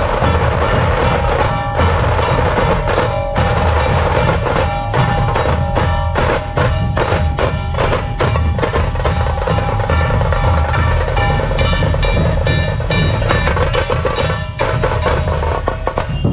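Dhol drumming: a heavy deep beat under fast, sharp drum strikes, with a steady ringing tone running along. It cuts off suddenly at the end.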